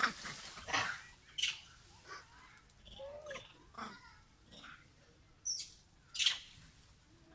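Macaques in the trees giving a string of short, high squeaks and chirps at irregular intervals, the two loudest about five and a half and six seconds in.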